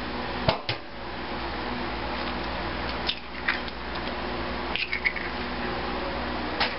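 An egg cracked into a stainless steel mixing bowl: a few short, sharp taps and clicks over a steady background hum.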